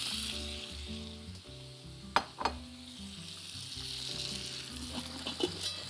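Meat chops frying in oil and a garlic-and-thyme marinade in a pan, a steady sizzle that thins about a second in and builds again in the second half. Two sharp clicks a little after two seconds in.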